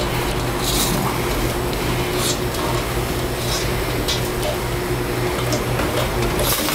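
A few light clicks and scrapes of a metal roller chain being worked onto the conveyor pizza oven's drive sprocket, over a steady low hum.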